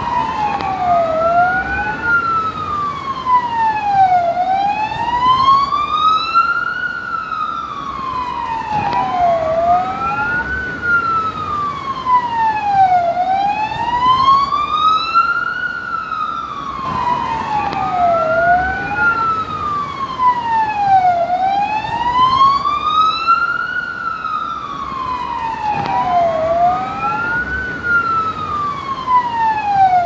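Police car siren on the wail tone, its pitch rising and falling slowly and steadily, one sweep every four to five seconds.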